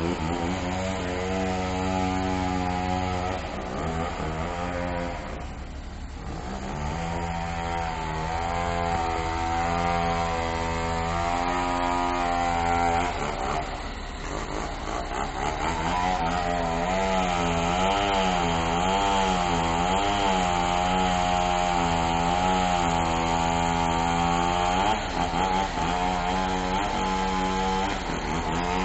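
Bulldozer's diesel engine working under load, its pitch rising and falling as the revs change, with brief drops in level about six seconds in and again around fourteen seconds.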